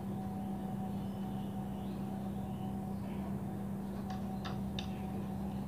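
Steady low background hum with a faint higher tone under it, and three light clicks about four seconds in as hands work the wiring and connector at the edge of a CRT TV cabinet.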